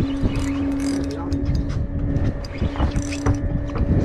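A boat engine running with a steady hum, under a heavy low rumble of wind on the microphone. Scattered clicks and rattles come as a Shimano Twin Power 5000 XG spinning reel is cranked against a bent rod under load from a hooked fish.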